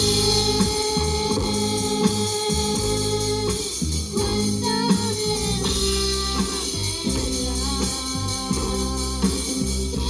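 Band music with guitar, bass and drum kit, and a lead melody line that slides between notes.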